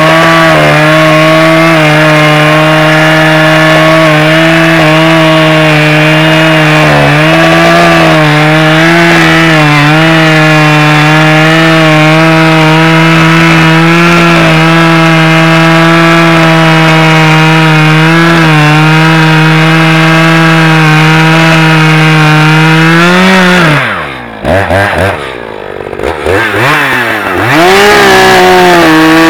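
Echo CS-590 Timberwolf two-stroke chainsaw with a 20-inch bar running at full throttle under load as it cuts through a large log. About 23 seconds in the revs climb briefly, then the throttle is let off and the engine drops toward idle with a blip for a few seconds, before revving back up into the cut near the end.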